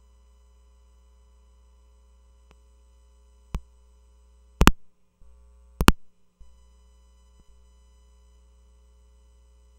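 Sharp clicks and pops from a table microphone and its audio feed being handled and adjusted: a single click about three and a half seconds in, then two louder double pops about a second apart, the background dropping out briefly after each. Beneath them runs a steady electrical hum of several faint tones from a faulty sound system that has cut out the speaker's voice.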